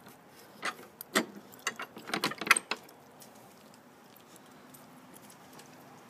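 Metal bolt latch on a wooden gate worked open: a run of metallic clicks and clinks over the first three seconds, then quiet.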